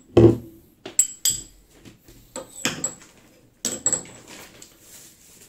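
Handling clatter: a dull knock, then a few separate sharp clicks and clinks as a corrugated rubber hose with a metal threaded end and other kit are moved about and set down on a wooden tabletop, going quiet near the end.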